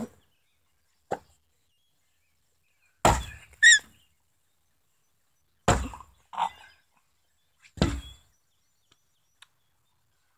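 A wooden stick whacking down on something soft, five thuds a second or two apart, the three heaviest about three, six and eight seconds in. Short, higher sounds follow the first two heavy blows.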